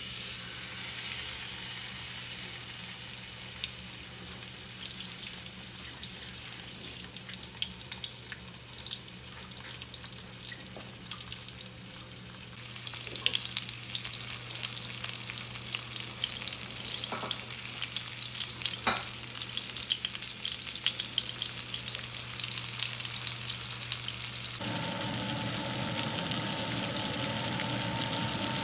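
Masala-marinated whole fish sizzling in shallow hot oil in a nonstick frying pan: a crackling hiss with scattered pops of spitting oil, starting suddenly as the fish is laid in. The frying grows louder in later stretches, and a few seconds before the end a steady hum joins it.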